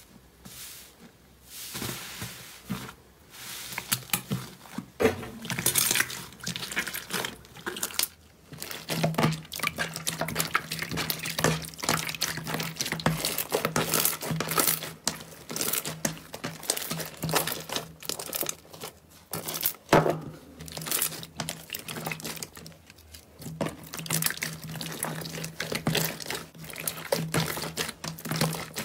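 Hands kneading, squeezing and stretching slime: a steady run of wet squelches, sticky clicks and crackling pops.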